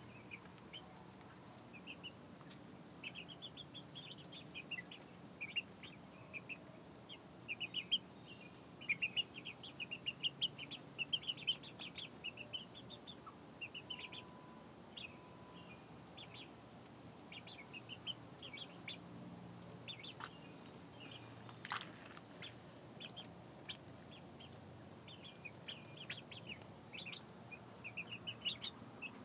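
A flock of young pullets, five to seven weeks old, peeping and chirping in many short high calls, busiest around a third of the way in. One sharp click about two-thirds of the way through.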